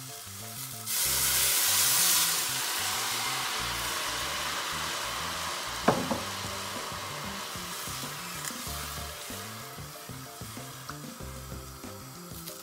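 Water poured into a hot cast-iron casserole of frying shallots. A loud hiss and sizzle starts suddenly about a second in, then settles into a steadier sizzle that slowly fades while the pot is stirred with a wooden spatula. There is a single sharp knock about six seconds in.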